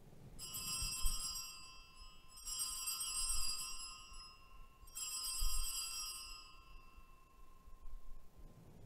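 Altar bells rung three times at the elevation of the consecrated host. Each ring is bright and high, starting sharply and fading slowly, and the last one lingers until near the end.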